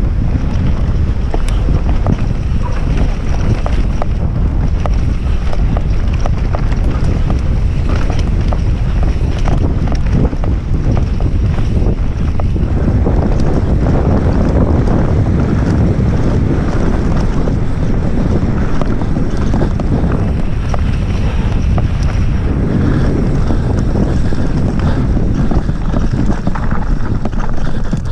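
Mountain bike descending a dirt trail at speed: wind rushing over the camera's microphone, with a steady low rumble of tyres on the ground and frequent short clatters of the bike over bumps.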